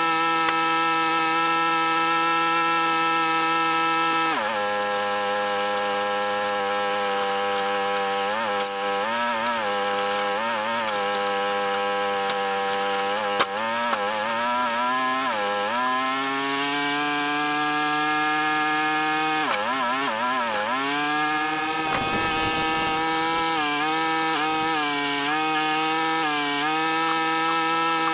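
Sawmill engine running as the blade saws through a pine log. Its pitch drops about four seconds in, then sags and recovers several times as the cut loads it.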